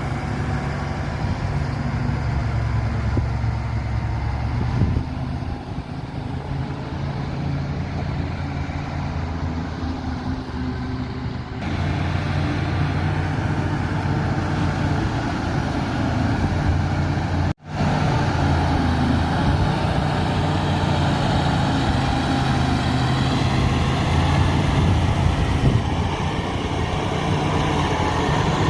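Diesel engine of a heavy earthmoving machine running steadily with a steady engine note; the sound shifts abruptly about 5 and 12 seconds in and cuts out for an instant a little past halfway.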